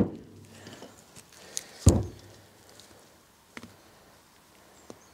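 Scattered clicks and knocks of a hydraulic cylinder piston, its seal rings and a pick being handled on a wooden workbench. Two of them are louder thumps, one at the start and one about two seconds in.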